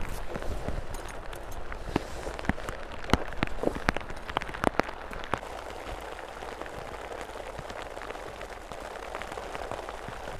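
Heavy rain falling on a plastic groundsheet: a steady hiss with many sharp ticks of single drops striking close by. The ticks are thickest in the first half and thin out later.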